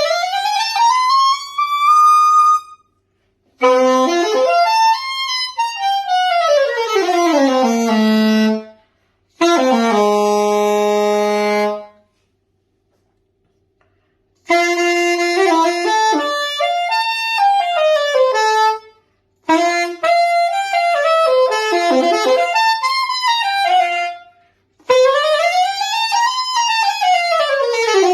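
Curved C.G. Conn soprano saxophone with a Hollywood Winds Tribute VS-7 mouthpiece, being play-tested after an overhaul. It plays phrases of rising and falling runs, split by short pauses, with a long held low note about a third of the way through.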